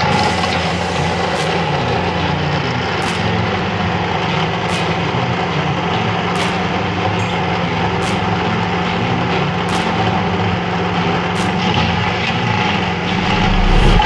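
PTH MicroCrusher Trail stone crusher on a remote-controlled tracked carrier, its engine running steadily under load while the rotor grinds through trail soil and stone. The low rumble grows heavier near the end.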